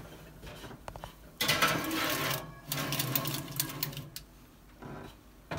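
A round metal cake pan pushed onto the wire rack of an electric oven, with metal scraping and rattling against the rack from about a second and a half in until about four seconds in. A few light clicks come just before it.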